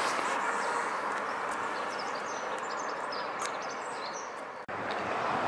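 Street ambience: a steady hum of road traffic with small birds chirping high above it. The sound cuts out abruptly about four and a half seconds in, then the traffic hum resumes a little louder.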